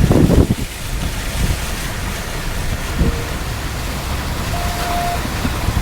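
Car driving through standing floodwater: a steady rush of water washing against the tyres and underbody over the low hum of the car. Two short, faint tones sound about three and five seconds in.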